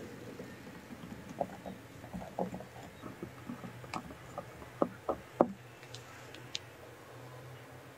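Soft wet stirring of whipped cream being folded into a creamy batter with a spatula in a glass bowl, with a scatter of light clicks and taps, over a low steady hum.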